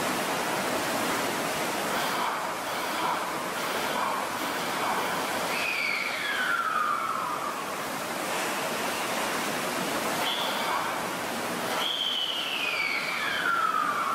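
Pole Star subway train standing at the platform with a steady air hiss. Twice, a whistling tone slides downward in pitch, about six and twelve seconds in: the train's air brakes releasing.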